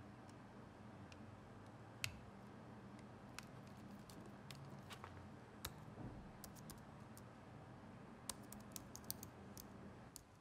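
Soft clicks of a laptop's keys and touchpad over quiet room tone: a single click about two seconds in, then scattered clicks in the second half with a quicker run near the end.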